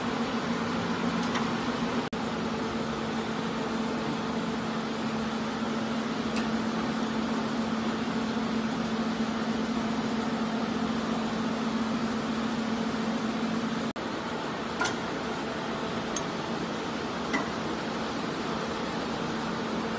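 Card slitting and collating machine running with a steady electric hum and a whooshing air-pump noise, with a few faint light ticks in the second half.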